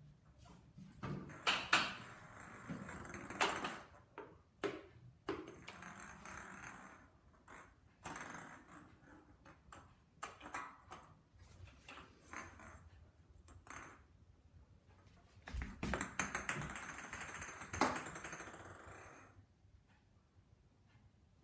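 A cat's small toy ball being batted about on a tiled floor: a scattered run of taps, clicks and knocks, with a few longer stretches of rolling and scraping.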